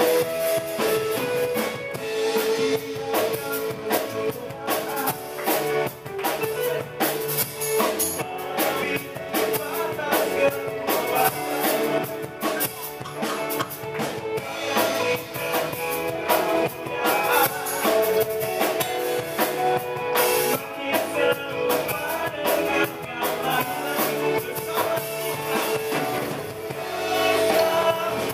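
Live worship band playing with drum kit, electric bass and electric guitar, while a male lead vocalist sings the Indonesian lyrics of a praise song.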